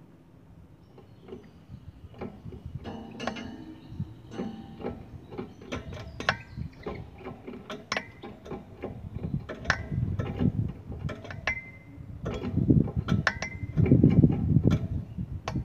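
Quick irregular clicks and rattles in a wire goldfinch cage, with a few short high chirps. The sound grows louder toward the end, with heavier thumps and rustles about ten and thirteen seconds in.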